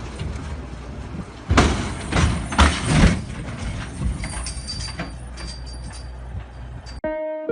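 A heavy vehicle's engine rumbling, with several loud knocks or bangs a second and a half to three seconds in. About seven seconds in, the sound cuts off abruptly and plucked guitar music begins.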